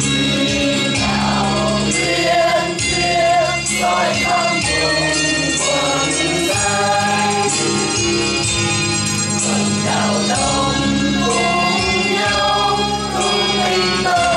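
Mixed choir singing a Vietnamese Buddhist hymn through microphones, over held accompanying notes.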